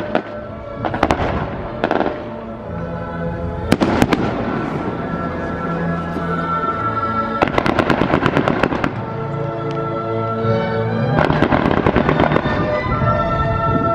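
Fireworks display: bangs and volleys of rapid crackling from aerial fireworks, with a dense crackling barrage about halfway through and another towards the end, over music playing throughout.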